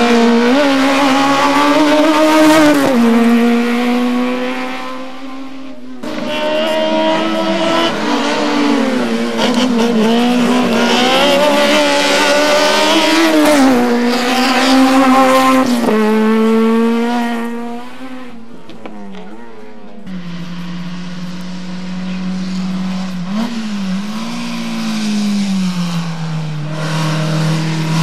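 Small racing saloon-car engines revving hard and lifting off over and over, the pitch climbing and dropping every second or two, with tyres squealing through the slalom. The sound changes abruptly a few times, each time to a different car's engine.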